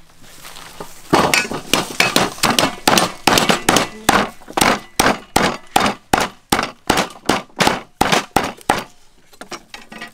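Wooden pestle pounding a bundle of lemongrass stalks on a wooden chopping block, bruising them. The blows are sharp, about three a second, starting about a second in and stopping about a second before the end.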